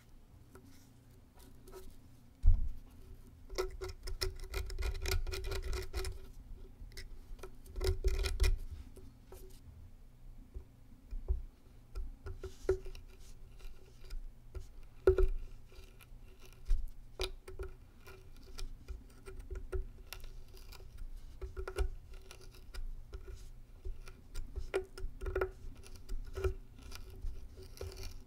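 Hobby knife blade scraping and picking the packed black composition out of a cut-open ground bloom firework's cardboard tube: bursts of rapid scratching with scattered clicks and a few sharper knocks.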